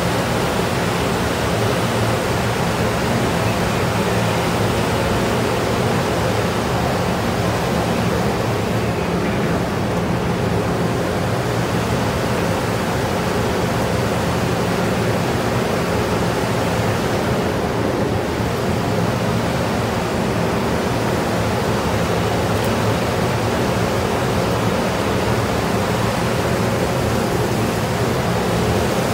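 Steady loud rushing noise with a low, even machinery hum underneath, unchanging throughout.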